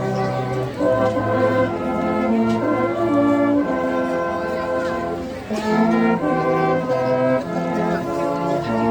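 Brass band music: a tune played on brass instruments, with notes changing every half second or so and a brief drop in level about five and a half seconds in.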